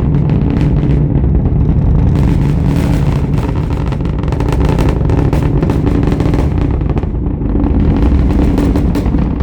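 Roar of a SpaceX Falcon Heavy rocket's engines climbing after liftoff: a loud, steady deep rumble with continuous crackling. It arrives seconds after the launch is seen, delayed by the distance.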